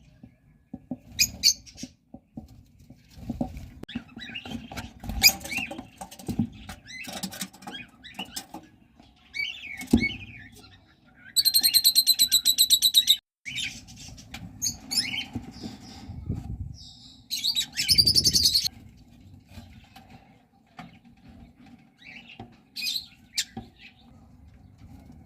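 Lovebirds chirping and squeaking with rustling and wing flutters. A loud, rapid, pulsed shrill call runs for about two seconds near the middle, and a second loud burst of calling follows a few seconds later.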